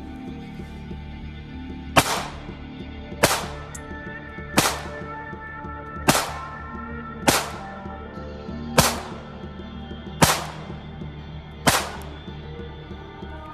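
Nambu Type 14 pistol firing 8mm Nambu rounds: eight single shots at a slow, steady pace, about one every second and a half, each followed by a brief echo.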